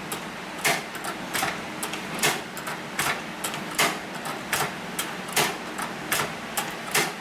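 Hand-crank leather sewing machine stitching slowly, knocking sharply a little more than once a second, with lighter clicks between the knocks.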